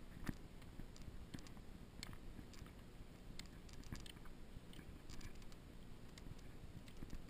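Footsteps crunching on a sandy, gravelly trail, with irregular small clicks and crunches over a low rumble from the camera being carried.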